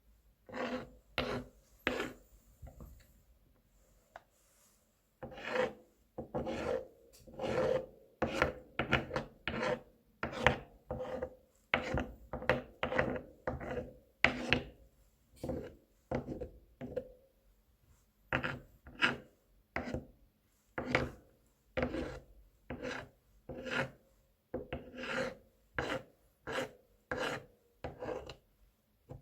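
A kitchen knife mincing garlic on a cutting board: short, sharp chopping strokes, about two a second, with a brief pause a few seconds in.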